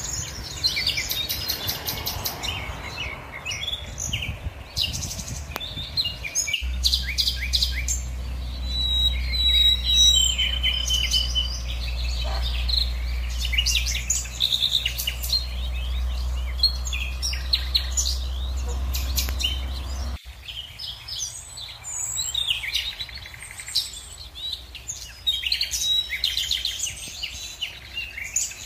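Many small birds chirping and trilling, dense overlapping calls. A steady low rumble comes in abruptly about a quarter of the way in and cuts off just as abruptly past the middle.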